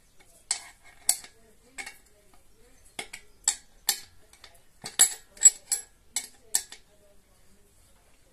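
Small metal tools and parts clinking and tapping as they are handled, about a dozen sharp knocks at irregular intervals.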